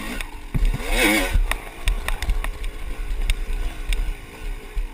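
Dirt bike engine heard from a camera mounted on the bike, its pitch rising and falling with the throttle, with a strong rev about a second in. Wind buffets the microphone in a low rumble throughout, and sharp knocks come through as the bike rides over rough ground.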